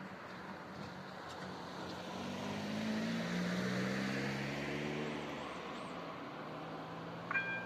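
A car drives past over the wet road: engine and tyre noise swell for a few seconds, then fade away. Near the end, a high two-tone signal begins sounding in short repeated blasts.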